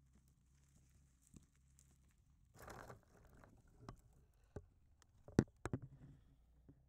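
Dry brush rustling, then a series of sharp knocks and clicks close to the microphone as the crashed GoPro Karma drone is handled and lifted out of the twigs.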